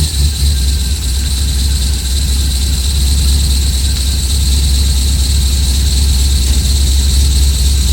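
A Corvette LS1 5.7-litre V8 idling steadily, with a steady high squeak from the serpentine belt drive that persists with the new belt tensioner fitted. The owner then suspects the A/C belt pulley or tensioner pulley.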